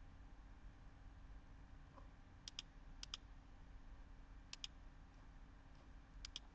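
Computer mouse clicking: four quick pairs of clicks, spaced irregularly, over a faint steady hum.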